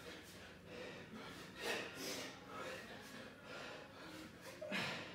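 A man breathing hard through a set of kettlebell swings, with sharp, puffing exhales, the strongest about a second and a half in and just before the end.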